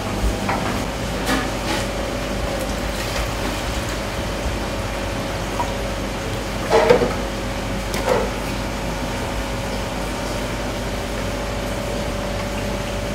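Clear plastic fish tanks and a lid clattering as they are handled, with a few short knocks, the loudest about seven seconds in, over a steady room hum.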